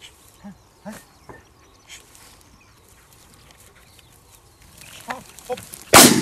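A single shotgun shot about six seconds in, loud and sudden, with a ringing tail, fired at quail on the hunt. Before it there are only faint, scattered brief sounds.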